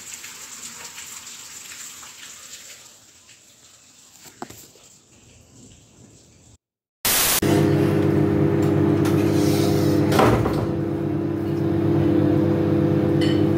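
A rain sound fades away over the first half. After a brief silence, a microwave oven runs with a loud, steady hum for the rest.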